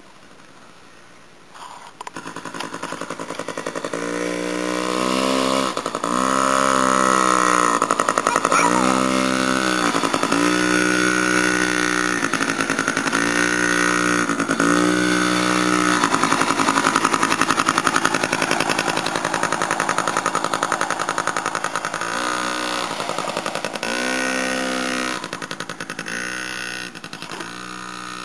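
Small Yamaha kids' dirt bike engine, coming in loud about two seconds in and revved up and down in repeated short bursts, with a steadier stretch in the middle as the bike rides past.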